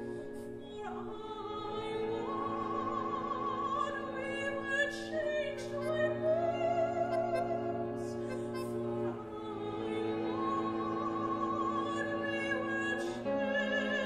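Soprano singing long held notes with vibrato over sustained bowed string chords from a small contemporary chamber ensemble; the chord shifts about every four seconds.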